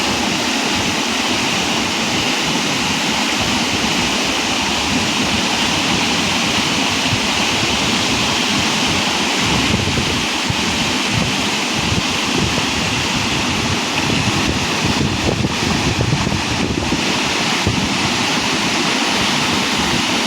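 Waterfall: a loud, steady rush of falling water, with wind buffeting the microphone in low rumbles.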